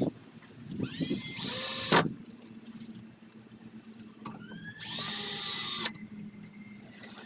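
18-volt cordless drill driving small screws for a latch in two short bursts, each about a second long. The motor whines up in pitch as each burst starts.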